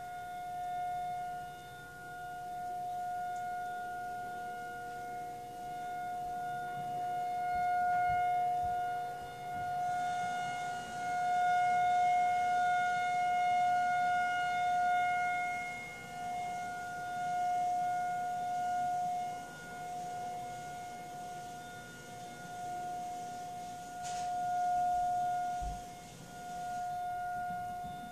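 Federal Signal 2001-SRN rotating outdoor warning siren sounding a steady single-pitch tone for a tornado drill. The tone swells and fades every few seconds as the rotating siren head turns toward and away.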